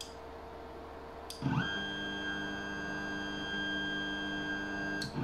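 Stepper motors of a 3D printer converted into a pick-and-place machine driving the head during homing: after a couple of light clicks, a pitched motor whine sweeps up about a second and a half in, holds steady for over three seconds, and stops just before the end.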